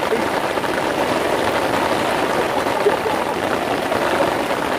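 Heavy rain falling on a fishing bivvy's fabric canopy, heard from inside as a steady, even hiss.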